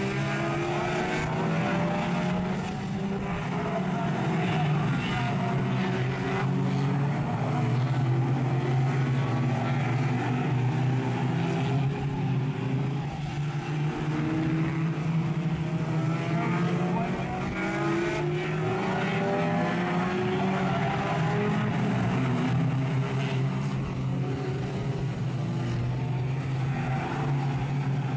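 Several racing cars' engines running hard as they lap an oval track, their pitches rising and falling across one another as each driver accelerates and backs off, over a steady low drone.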